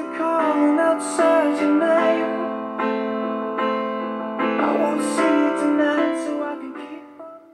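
Piano-led music playing, with sustained chords and a melody, fading away near the end.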